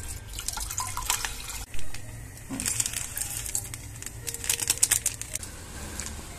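A plastic seasoning sachet crinkling as it is shaken over a stainless steel saucepan, with the dried vegetable flakes pattering into the pot as a run of small clicks between about two and a half and five and a half seconds in. There is a single knock a little before that, and a low hum underneath.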